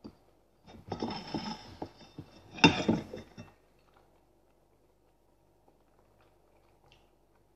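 Close-miked clicks and clatter of eating and handling tableware for about three seconds, loudest about two and a half seconds in, then near silence.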